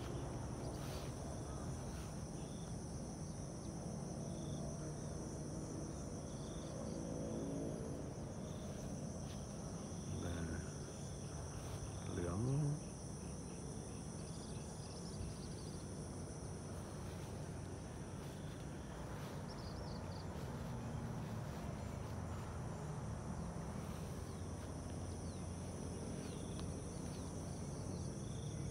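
Insects trilling steadily in two high, unbroken tones over a low background rumble, with a brief louder pitched sound about twelve seconds in.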